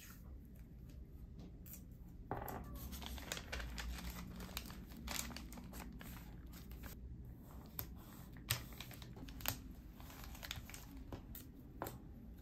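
Paper packaging rustling and crinkling as it is folded around a small parcel, with washi tape being pulled off its roll and torn. Quiet and irregular, with a louder rustle about two seconds in and two sharp clicks later on.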